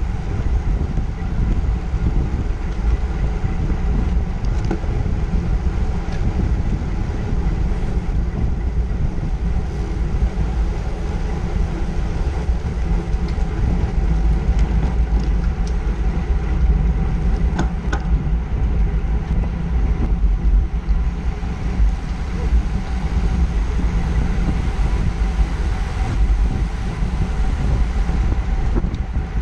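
Wind rushing over an action camera's microphone on a road bike riding at speed in a pack: a loud, steady low rumble with a faint steady hum. A few sharp clicks come just past the middle.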